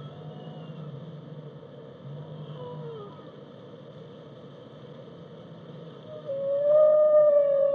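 Whale song: long calls that glide in pitch over a steady low rumble. A short falling call comes about two and a half seconds in, and a much louder long call comes in about six seconds in and holds a nearly steady tone.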